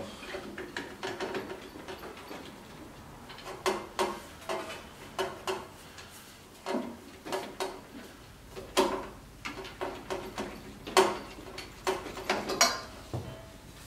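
Motorcycle exhaust pipes being wiggled and pulled apart at their slip joints, giving irregular metal clinks and knocks, with a few louder knocks in the second half.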